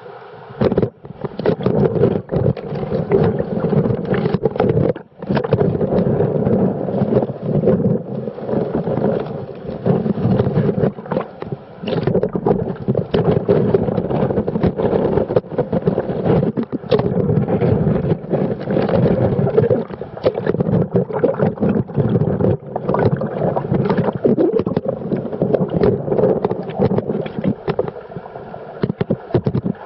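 Rushing, splashing water of an underground stream and waterfall inside a limestone cave, loud and continuous, briefly dipping about five seconds in.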